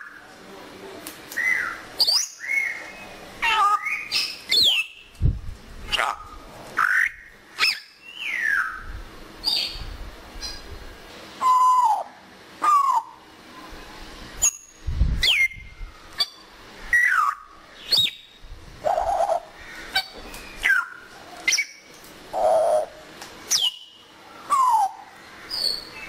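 African grey parrot giving a string of short whistles and calls, mostly falling in pitch, about one a second, with clicks between them. A couple of low thumps come about five and fifteen seconds in.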